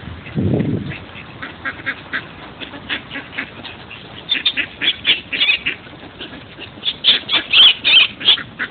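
A flock of mallard ducks quacking over and over, many short overlapping quacks that thicken about halfway through and are loudest near the end. A brief low rumble comes just after the start.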